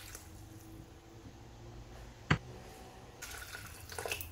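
Water poured from a glass jug into a Thermomix bowl of lentils and vegetables. The pour is faint at first and grows into a louder splashing stream near the end, with one sharp click about two seconds in.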